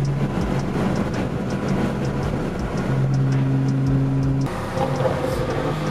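Car engine and road noise heard from inside a moving car at highway speed, a steady drone. It is mixed with background music carrying an even hi-hat beat, and the sound changes abruptly about four and a half seconds in.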